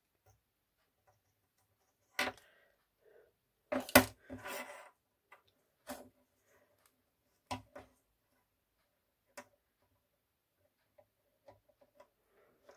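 Scattered clicks and taps as a soldering iron, an XT60 connector and a wire are handled on a wooden desk during soldering, the loudest knock about four seconds in and a few faint ticks near the end.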